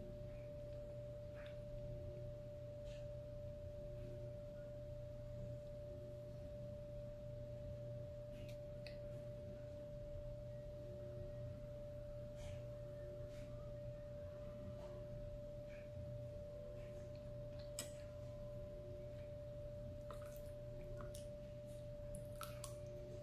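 A steady, unchanging tone at one pitch with a low hum beneath it. Over it come faint, scattered clicks of a person eating with a plastic fork, coming more often near the end.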